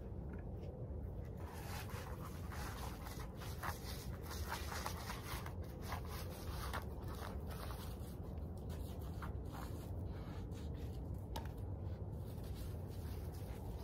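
Irregular light scrapes and clicks over a steady low rumble.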